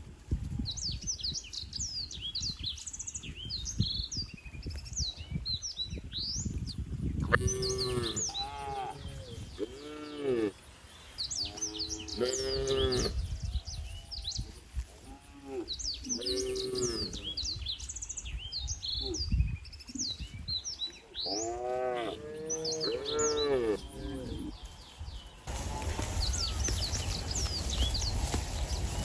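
Cattle mooing, several long drawn-out moos from different animals, with small birds chirping throughout.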